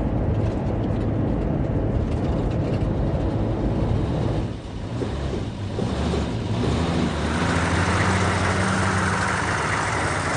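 Motor vehicle running: a steady engine hum with road noise. The engine note rises a little and the noise grows past the middle.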